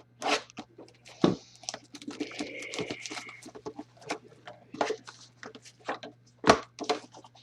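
Handling noise: a string of sharp knocks and taps with some rustling, and a brief high-pitched tone about two seconds in, over a steady low hum.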